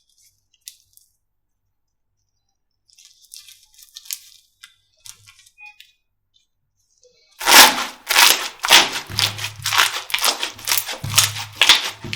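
Slime being squeezed and pressed, giving faint crackles at first and then, about seven seconds in, a loud run of dense crackling and popping clicks.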